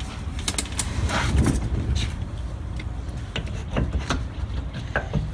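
Scattered clinks and knocks of hand work on the driveshaft's flange bolts where it joins the differential, as the shaft is worked loose, over a steady low rumble.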